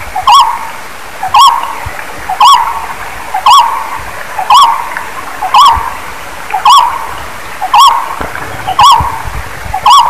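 Barbet calling: a short hooting note that rises and falls in pitch, repeated steadily about once a second.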